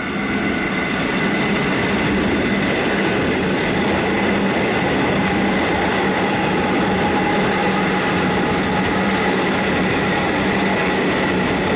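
A Melbourne suburban electric train running past the platform without stopping: a loud, steady rumble of wheels on rail with a steady hum and a higher whine from the train running through it.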